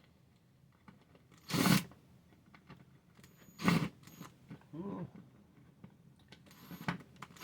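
Short crunching, scraping bursts of hands handling and fitting small bracket hardware: two loud ones about two seconds apart and a softer one near the end, with light clicks between.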